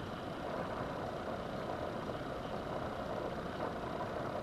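Steady background noise: an even, constant hiss or hum with no distinct clicks or knocks.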